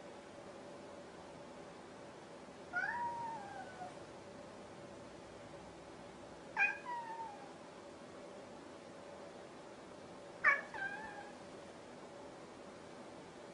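Grey tabby cat meowing up at a person three times, a few seconds apart. The first call is the longest and rises then falls in pitch; the last two start abruptly and fall away.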